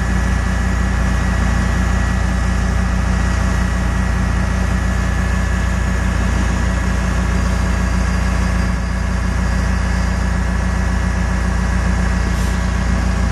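Detroit Diesel 8.2-litre V8 diesel engine of a GMC medium-duty truck idling steadily.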